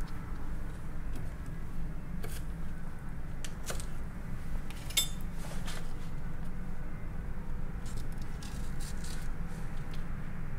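Steady low room hum, with a few faint clicks and rustles as fingers handle a green onion stalk on a wooden cutting board, one sharper click about halfway through.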